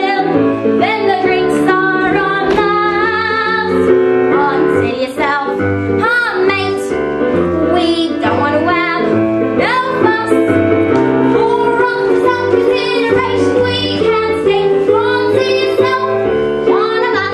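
A girl's solo singing voice in a musical-theatre song, over instrumental accompaniment.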